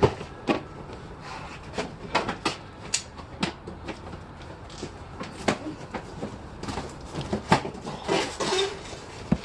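Irregular knocks, clunks and rattles of boxes and stored household goods being handled and moved about, with a short scraping rustle near the end.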